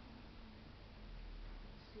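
Quiet indoor room tone with a faint steady low hum and no distinct sound.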